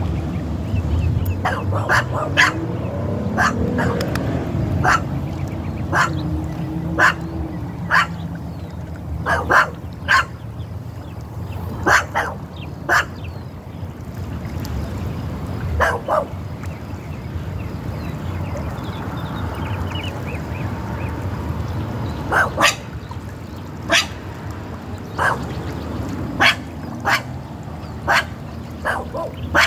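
A dog barking repeatedly, short sharp barks singly or in pairs about every second, pausing for several seconds after the middle, over a steady low background noise.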